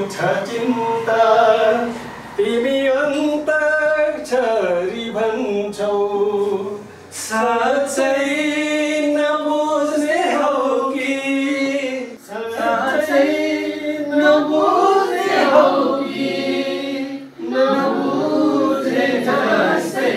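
A group of voices singing a song together, unaccompanied, with long held notes.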